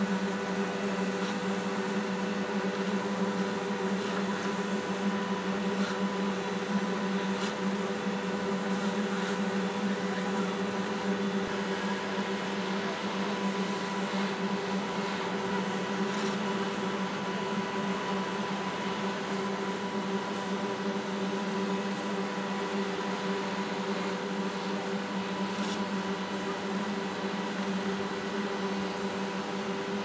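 GOMACO slipform concrete paver running as it lays a slab: a steady machine drone with a strong low hum and several fainter steady tones above it.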